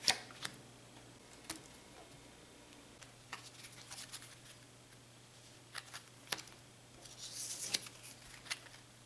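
Playing cards being drawn, slid and set down on a wooden table: scattered light snaps and taps, with a brief brushing swell of cards handled together about seven to eight seconds in.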